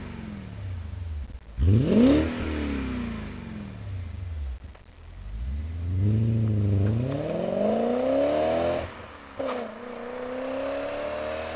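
2000 BMW M5's 4.9-litre V8 through a MagnaFlow performance exhaust: one sharp rev blip about two seconds in, then the car pulls away with the revs climbing through first gear, dropping suddenly at the upshift, and climbing again in second.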